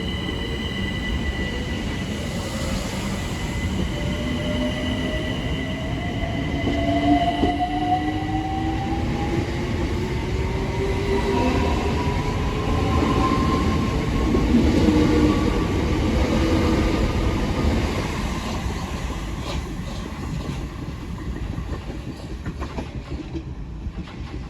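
Two coupled Class 376 Electrostar electric multiple units pulling out, their traction motor whine rising steadily in pitch as they accelerate over a heavy rumble of wheels on rail. A high steady whine is heard in the first few seconds, and the sound fades toward the end as the train draws away.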